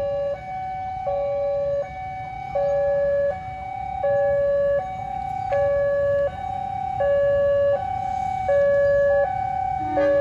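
Railway level-crossing warning alarm: an electronic two-tone signal that alternates steadily between a lower and a higher tone, each held for under a second, growing slowly louder. It signals that the barriers are down for an approaching train.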